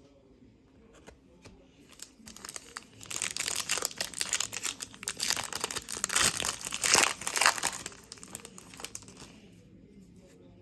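Foil wrapper of a trading-card pack crinkling and tearing as it is opened by hand, a dense crackle lasting about five seconds that starts some two seconds in.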